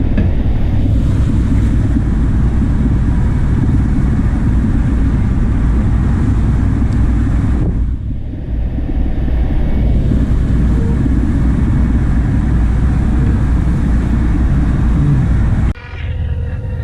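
Fishing boat's engine running with a steady low rumble, briefly cut off about eight seconds in and again near the end.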